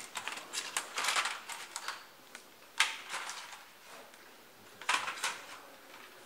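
Clicks and clatter of hand tools and small parts being handled on a workbench and in steel trays, in several short bursts, the sharpest click about three seconds in.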